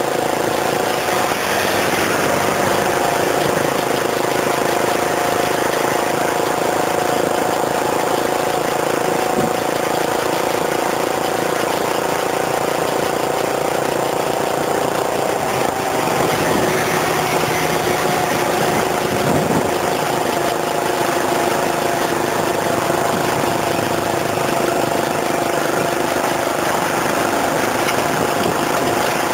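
A vehicle's engine running steadily while driving, with a constant hum over an even hiss.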